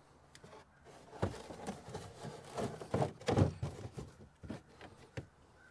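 Irregular knocks and rustles of objects being handled and set down in a car trunk, starting about a second in and dying away near the end.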